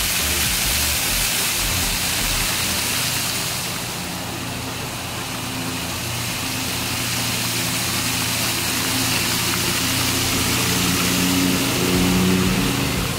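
Ground-level fountain jets spraying up from paving and splashing back down: a steady loud hiss of falling water, with a low mechanical hum underneath that swells slightly near the end.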